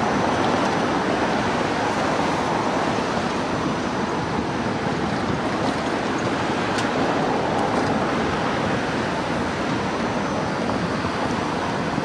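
A train rolling past, heard as a steady rushing rumble of wheels on rail with no distinct beats.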